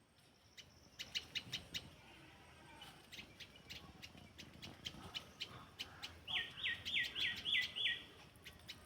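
Birds chirping outdoors: a quick run of sharp chirps about a second in, scattered chirps after, then near the end a series of six loud repeated notes, each falling in pitch.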